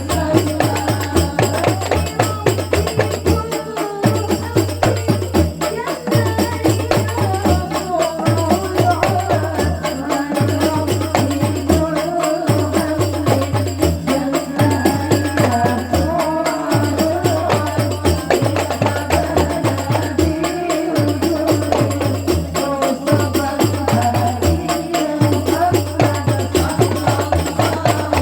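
Rebana frame drums beating a steady, repeating sholawat rhythm, with a singer's voice carrying the melody over them.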